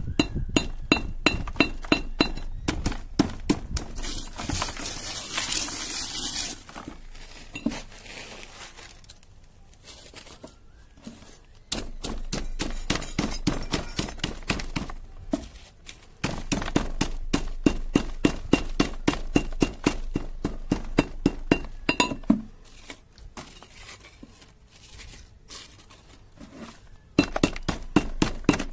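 A pestle pounding burnt mobile-phone circuit boards and chips in a metal bucket, crushing them to powder. It gives steady crunching, clinking strikes about two a second, which turn softer twice for a few seconds.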